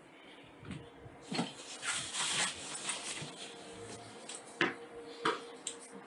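Footsteps scuffing and knocking on bare concrete, with two sharper steps about a second before the end, under a faint steady tone.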